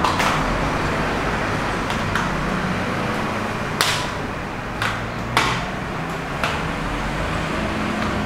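Handling noise: a few sharp clicks and knocks, most of them past the middle, as a speaker cable is uncoiled and gear is moved around the amplifier. Underneath is a steady rumble of background noise.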